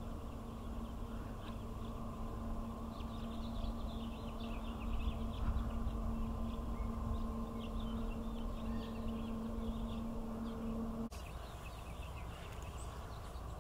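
Canada goose goslings peeping in many short, high chirps, over a steady hum that cuts off suddenly about eleven seconds in.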